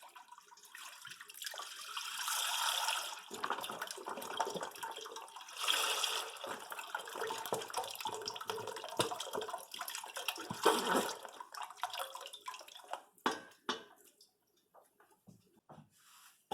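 Store-bought beef broth being poured into a cooking pot: a long, steady splashing pour that surges a few times, followed by a few short knocks near the end.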